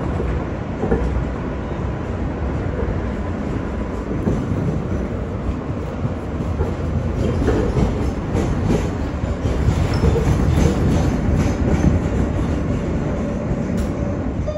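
An R143 subway car running along the track, heard from inside the car: a steady rumble of wheels on rail, with a faint thin whine in the first few seconds. Around the middle the rumble grows a little louder, with a run of clacks from the wheels passing over the track.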